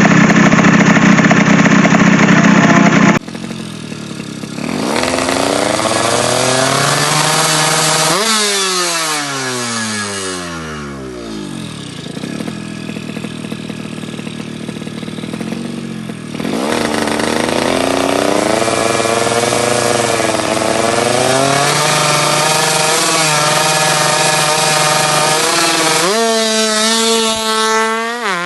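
Yamaha F1ZR two-stroke motorcycle engine, tuned to 120 cc, being revved again and again: the pitch climbs with the throttle and falls back as it is released. The first few seconds are louder and harsher, cutting off suddenly.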